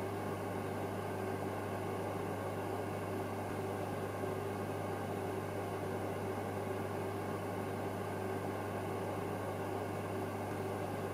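Steady low electrical hum with a faint higher tone above it and a light hiss.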